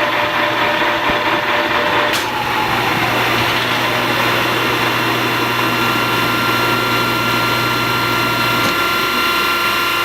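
Metal lathe running with a Bridgeport True Trace hydraulic tracer unit driving the tool, a steady mechanical hum with a click about two seconds in followed by a falling tone.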